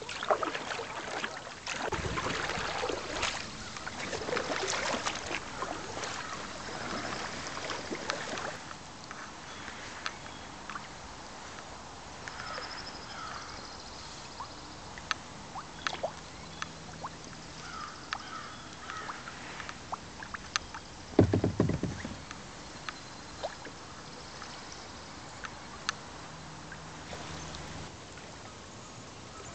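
Kayak paddling: the paddle splashing in the water for the first several seconds, then scattered drips and small ticks as the kayak glides, with one low thump about two-thirds of the way through.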